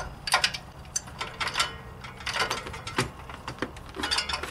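Hand tools and metal parts clicking and clanking irregularly in a car's engine bay, a few sharp knocks in quick clusters, as a serpentine belt is worked over the pulleys and tensioner.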